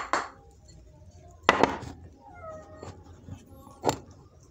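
A cat meows once, a short call falling in pitch, about halfway through. Two short sharp knocks sound around it, the louder one just before the meow and another near the end.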